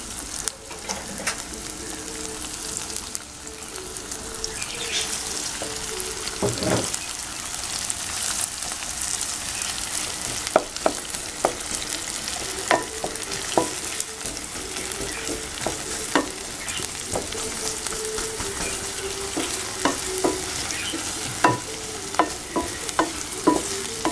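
Chopped onions sizzling in hot oil in a large pan, the onions just starting to fry. A wooden spatula stirs them, knocking and scraping against the pan, with one knock about seven seconds in and frequent short knocks from about ten seconds on.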